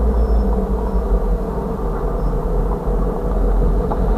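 Freight cars rolling slowly past on the rails: a steady low rumble, heard from inside a vehicle.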